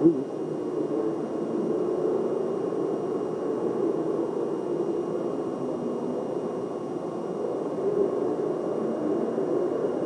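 Steady reverberant room noise of a large hangar, with a faint murmur of distant voices and a brief bump at the very start.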